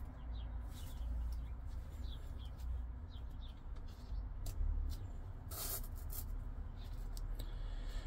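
Quiet handling of a titanium-handled folding knife with gloved hands as it is laid on a bamboo mat: a few soft clicks and taps, the strongest a little past the middle, over a low rumble, with faint short high chirps.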